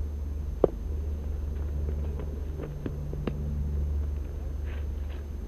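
Sharp knocks of a cricket ball in a practice net: the loudest about half a second in, then a couple of smaller ones around three seconds, heard over a steady low rumble.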